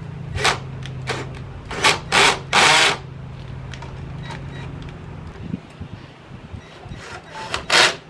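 Cordless drill/driver running steadily while driving screws into the sheet-metal cabinet panels of a Lennox air-conditioner condenser. Several short, loud, harsh bursts come half a second in, three around two seconds in, and one near the end.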